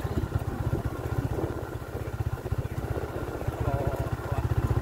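Motorcycle engine running at low speed while the bike is ridden slowly over a grassy, overgrown track, a little louder again near the end.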